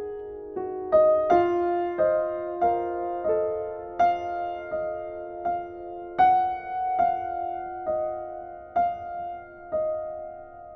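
Slow, gentle background piano music: single notes struck roughly every two-thirds of a second, each ringing out and fading over a held chord.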